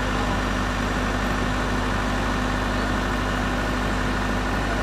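Case Super L backhoe loader's diesel engine running steadily at an even speed, with no revving or change.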